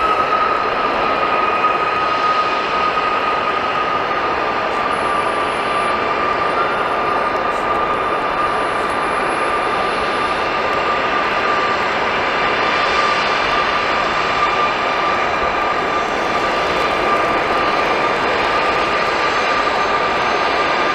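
Embraer E175's twin General Electric CF34-8E turbofans running at low taxi power: a steady, high whine over an even jet rush.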